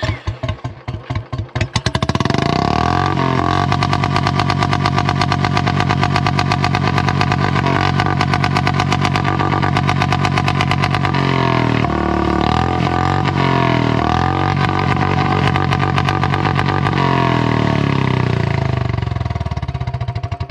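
Royal Enfield Bullet 350's single-cylinder engine, fitted with a long-bottle 'Bada Punjab' silencer, revved hard through the open exhaust. It is blipped for the first couple of seconds, held at high revs, and drops back to a slow thumping idle near the end.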